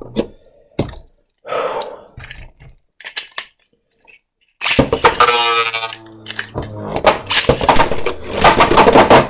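A Beyblade round: a few clicks and knocks as the tops and launchers are readied, then about five seconds in a ripcord launcher whirrs as its cord is pulled. Spinning Beyblade Burst tops then clatter and scrape against each other and the plastic stadium.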